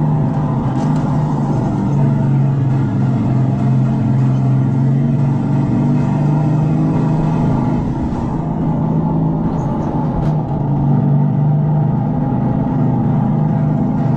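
Electric go-kart on the track, its speaker playing a simulated engine sound: a steady drone whose pitch shifts a little up and down, dipping slightly about two-thirds of the way through.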